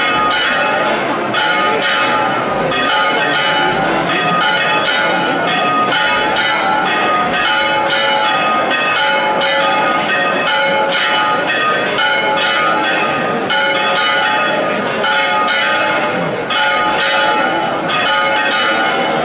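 Church bells ringing a rapid, continuous peal, with many overlapping strikes a second and the tones ringing on between them.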